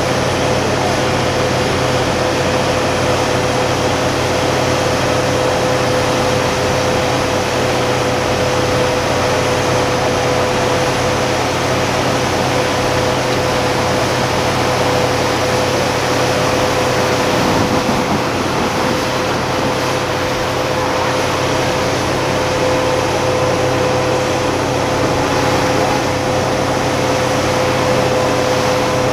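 Truck-mounted borewell drilling rig running steadily while it drills, a loud constant mechanical drone with a steady high hum, as water and cuttings are flushed out of the borehole.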